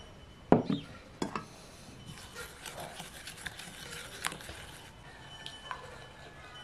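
A few sharp knocks near the start, the loudest about half a second in, then a wooden spoon stirring an oil-and-spice marinade in a glass bowl, scraping and clicking against the glass for about three seconds.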